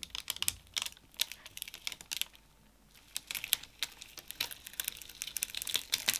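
Thin paper sheet being peeled slowly away from dried glue, crinkling and crackling in irregular small snaps, with a brief lull about halfway and denser crackling after it.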